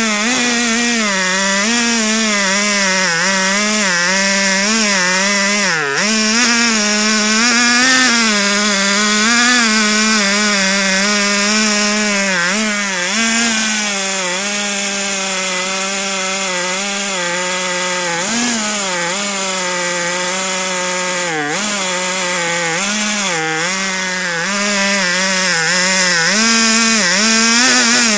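Two-stroke petrol chainsaw in a chainsaw mill, running at high speed under load as it rips lengthwise through a log. The engine pitch wavers as the cut loads it, dipping briefly a few times.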